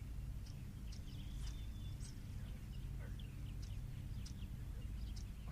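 Small birds chirping with short, scattered calls over a steady low rumble.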